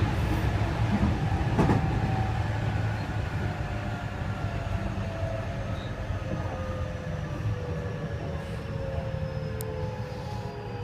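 JR West 207 series 1000 subseries EMU motor car heard from inside, running and then slowing: several inverter tones fall steadily in pitch over the rail and running noise, with a single clunk about two seconds in. The uploader notes that one of this car's two inverters has its modulation out of step, which makes the braking tones sound odd.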